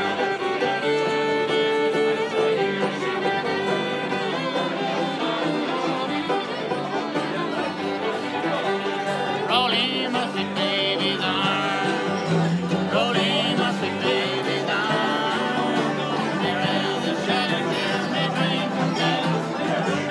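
Acoustic bluegrass jam: a fiddle playing the lead, with a banjo picking and a guitar strumming along, in steady unbroken music.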